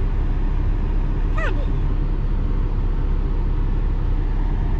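Steady low hum of a car idling, heard from inside the cabin, with no change in level. About a second and a half in there is one brief high, falling squeal.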